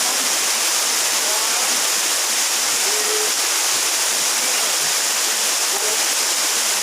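Waterfall rushing: a steady, even hiss of falling water that does not let up.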